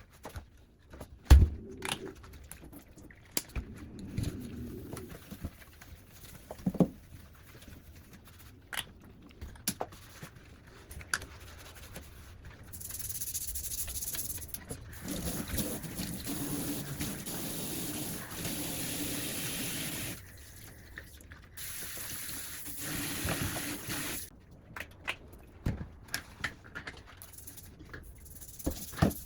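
Washing up at a kitchen sink: the tap runs in two stretches of several seconds, with dishes and utensils clinking and knocking before, between and after.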